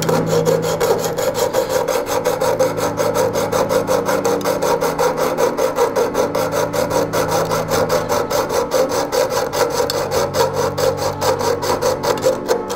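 Small hacksaw cutting into a watch clamped in a vice, in quick, even back-and-forth strokes that rasp steadily.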